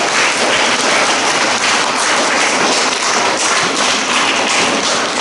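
An audience of schoolchildren applauding: many hands clapping at once, sustained and loud.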